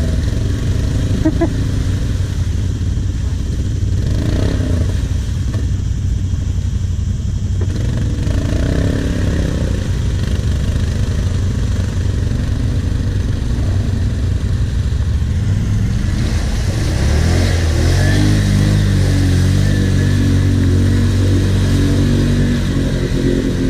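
ATV engines running with a steady low drone. About two-thirds of the way through, a quad's engine revs up harder and stays loud as it pushes into the deep muddy water, with splashing.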